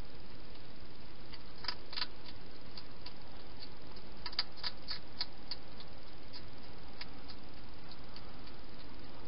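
Wild hedgehog eating from a bowl inside a plastic feeding box: scattered crisp clicks of chewing, a pair about two seconds in and a quick run of them around four to five seconds, over a steady hiss.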